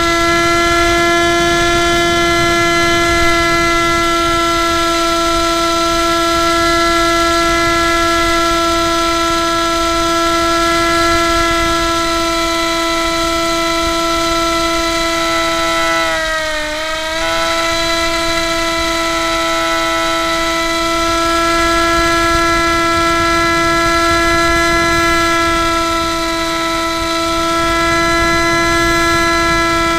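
Spyhawk RC plane's electric motor and propeller, a steady high whine close to the microphone. About halfway through, the whine briefly dips in pitch as the throttle is eased, then comes back to the same note.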